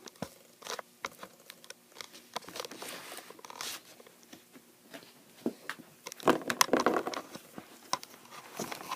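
Hands handling small plastic toys and packaging: scattered clicks and knocks with crinkling and rustling of plastic, loudest a little past the middle.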